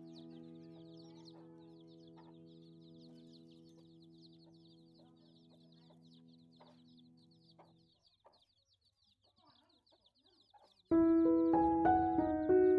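A brood of young chicks peeping continuously in rapid, high, overlapping chirps. A held music chord fades out by about eight seconds in, and near the end loud music with a stepping melody cuts in over the peeping.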